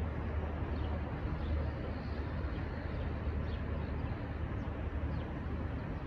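Steady low rumble of a container freight train rolling away into the distance, with a few faint bird chirps above it.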